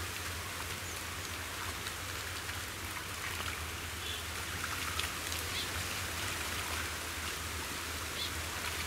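Muddy shallow water sloshing and trickling as hands grope through pond mud, a steady watery hiss over a low steady hum.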